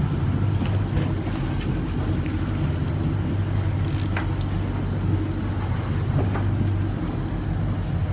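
Sportfishing boat's engine running steadily, a constant low drone.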